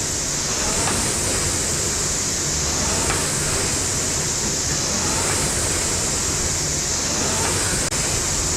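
Air-resistance rowing machine, a Concept2-style copy, in steady use: the fan flywheel whooshes continuously, swelling with each stroke about every two seconds, with a faint tick on each stroke.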